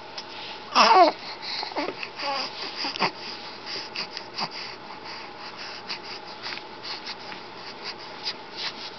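A baby's short wavering vocal sound about a second in, softer vocal sounds near two seconds, then a string of short, faint breathy noises.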